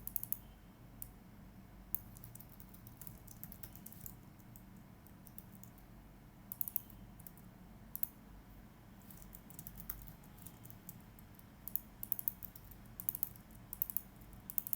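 Typing on a computer keyboard in uneven bursts of quick keystrokes, with short pauses between runs, over a faint steady hum.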